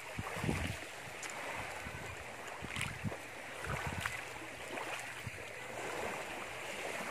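Steady outdoor seaside noise, with wind gusting on the microphone in a few low rumbles about half a second, three seconds and four seconds in.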